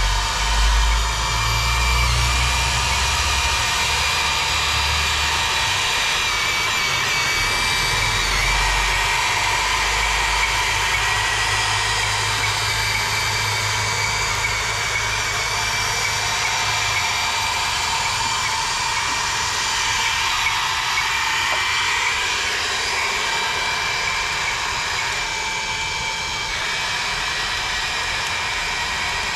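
Remote-control excavator's electric drive motors and gearing whining steadily as it crawls along towing a line of toy trucks, with some low rumbling during the first ten seconds.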